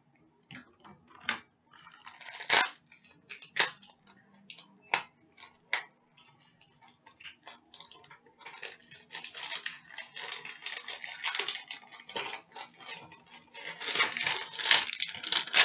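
A cardboard carton of stainless steel cutlery being handled and opened: a series of sharp clicks and knocks, then from about halfway longer stretches of rustling and scraping of cardboard and packaging.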